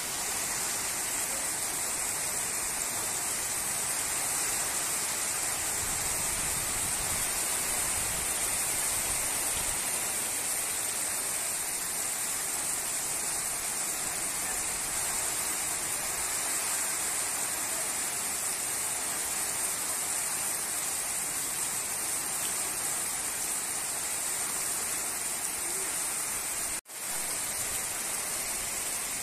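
Steady rain falling, an even hiss with no breaks except a momentary dropout near the end.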